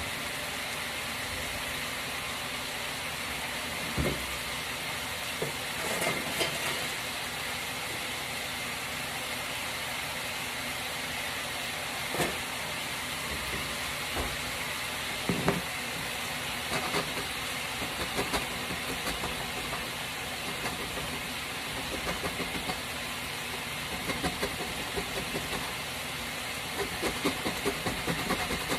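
A steady hiss, with a few scattered knocks. Near the end an orange is zested on a metal box grater in quick rasping strokes, about three a second.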